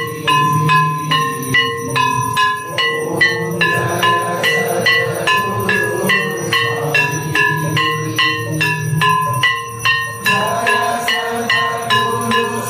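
Temple bells rung rapidly in a steady rhythm, about three ringing strikes a second with pitches that change from strike to strike, over a low steady beat: the continuous bell-ringing of a temple aarti.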